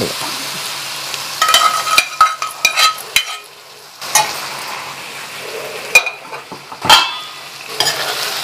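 A spatula stirring and mashing boiled raw banana with onion and green chilli in a frying pan, scraping and clinking against the pan over a light sizzle of frying. The stirring pauses briefly about halfway through, and two sharper knocks on the pan come later.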